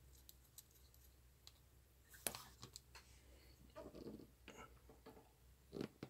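Faint clicks and light handling noise from an SMA coax connector being screwed by hand onto the SMA jack of an RF attenuator board. The sharpest click comes a little over two seconds in, and a short knock comes near the end.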